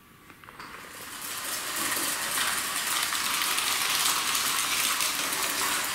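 Model locomotive with a Märklin Maxi chassis and its original 12-volt DC motor running with its wagons on metal track: a dense metallic rattle and clatter of motor, wheels and rails. It starts about half a second in, grows louder over the next second or so, then holds steady.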